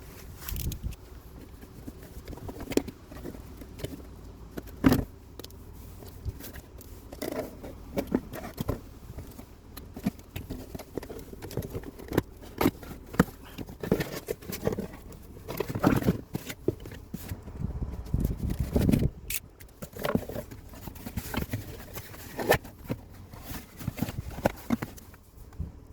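Irregular clicks, knocks and short scrapes of hand tools and metal parts being handled, as in work on a car's rear wheel hub area to replace an ABS wheel speed sensor.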